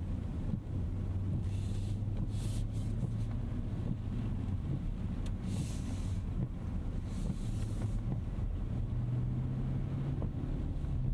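2025 Rolls-Royce Ghost Series II, with its 6.75-liter twin-turbo V-12, driving on a wet road: a steady low rumble of engine and tyres whose hum rises in pitch about nine seconds in. Three brief hisses come at about two, five and a half, and seven and a half seconds.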